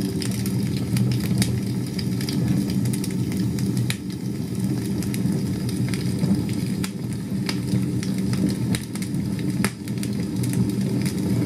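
Campfire crackling: irregular pops and snaps of burning wood over a steady low rumble.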